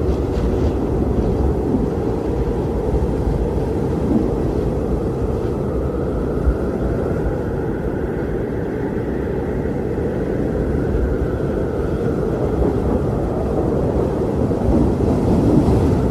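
Strong wind blowing steadily: a deep, rushing rumble with a faint whistle that rises and falls in pitch about halfway through.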